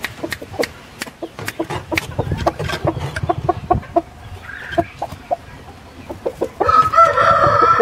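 Black Heyrati rooster giving a quick run of short clucks mixed with sharp clicks, then near the end a louder, long drawn-out call that falls in pitch as it fades.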